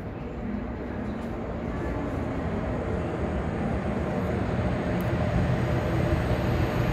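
Seoul Subway Line 1 electric commuter train approaching and entering the station, its low rumble growing steadily louder as it nears.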